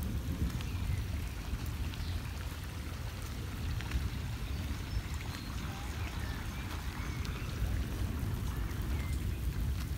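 Steady patter of rain and running storm water over a flooded garden, with a low, gusty rumble of wind on the microphone.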